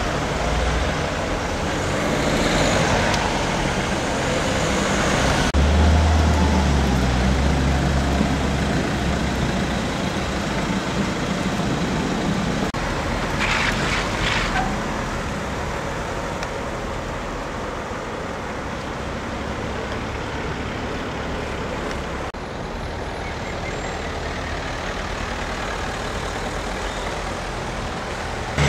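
Slow, jammed road traffic: lorries and cars passing close by with engines running. A lorry's deep engine rumble stands out for several seconds, and there is a brief hiss about fourteen seconds in.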